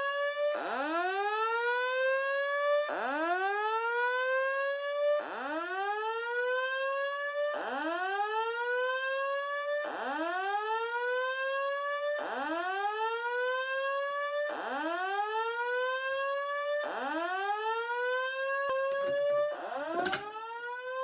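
Simplex fire alarm sounding a whooping signal: a tone that sweeps up and levels off, repeating about every 2.3 seconds. A brief click is heard near the end.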